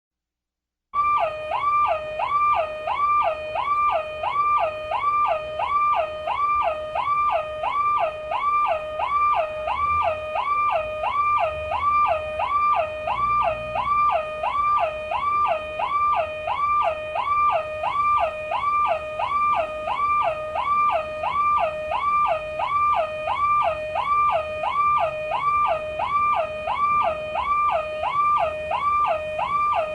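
Car alarm siren: an electronic tone sweeping up and down between a low and a high pitch about one and a half times a second, steady and unbroken. It starts about a second in.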